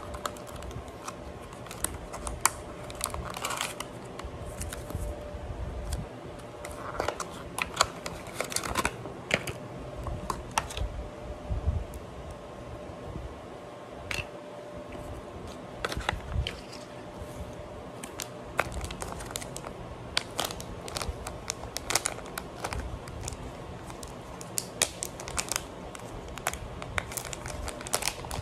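Hands handling a small cardboard box and plastic packaging: irregular taps, clicks and crinkles throughout, over a faint steady hum.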